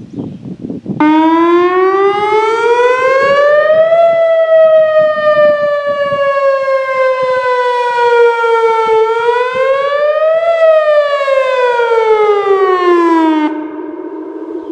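Whelen WPS 2802 electronic outdoor warning siren sounding one of its test signals, a single loud tone that starts abruptly about a second in. It glides up, sinks slowly, rises again, then falls and cuts back to a fainter lingering tone near the end.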